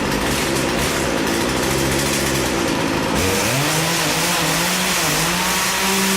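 A chainsaw engine runs with a steady pitch, drops, then revs back up about three seconds in and holds a higher steady note.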